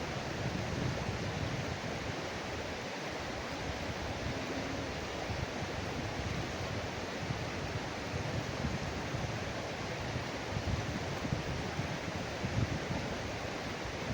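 Steady rushing of a fast-flowing river, its current running high after rain, with wind buffeting the microphone.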